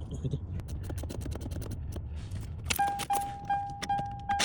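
Scattered clicks and scrapes of hand work on a steering column. About two thirds of the way in, an electronic warning beep starts, one steady tone repeating about two and a half times a second.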